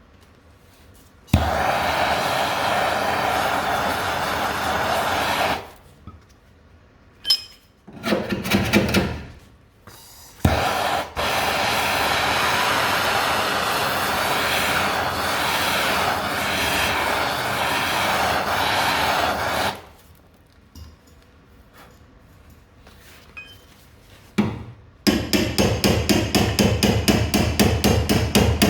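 Gas blowtorch flame hissing steadily in two long stretches, heating old body filler on a car's wheel arch to soften it. Near the end a rapid, rhythmic knocking starts, about four strokes a second.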